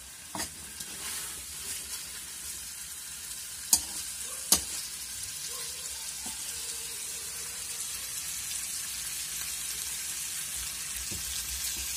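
Chicken drumsticks in thick masala gravy sizzling in a kadai as they are gently turned over by hand: a steady hiss, with two sharp clicks about four seconds in.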